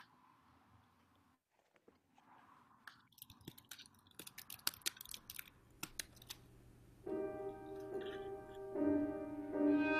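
Faint scattered clicks and crackles, then about seven seconds in a piano and violin begin playing with held, sustained notes.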